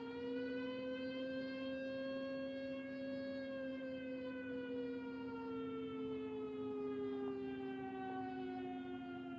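Siren winding, its pitch finishing a rise, peaking about three seconds in, then sliding slowly down. A steady low tone lies under it throughout.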